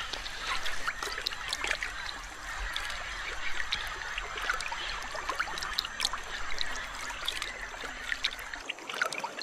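Water trickling and lapping, with many small splashes, as a green anaconda swims through shallow river water.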